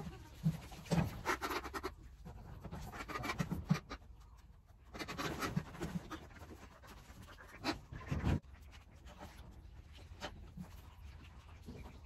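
A duck being handled for slaughter: irregular scuffling and rustling with scattered knocks, and a heavier thud about eight seconds in.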